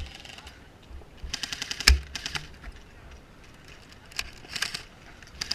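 Airsoft guns firing in short rapid bursts of sharp clicking shots, with one louder single crack about two seconds in.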